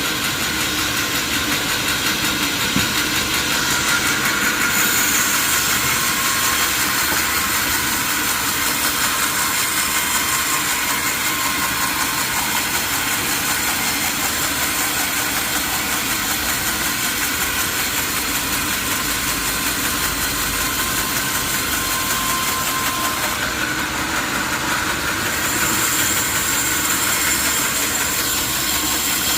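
Sawmill machinery running steadily, its motor and saw giving a continuous mechanical drone with a few steady tones. The higher part of the sound shifts about five seconds in and again near the end.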